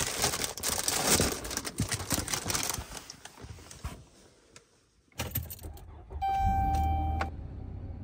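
Jangling and rustling, as of things being handled, for about three and a half seconds. After a brief silence comes a short knock, then a steady tone about a second long over a low hum, then a faint steady background noise.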